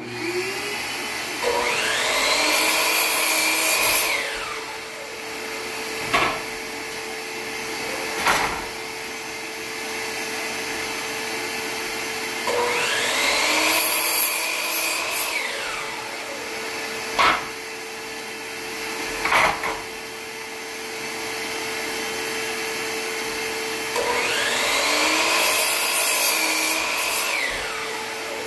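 A DeWalt miter saw makes three crosscuts through wooden tongue-and-groove boards. Each time the motor spins up, the blade cuts and the motor winds down. A shop vacuum hums steadily throughout, and there are sharp knocks between the cuts.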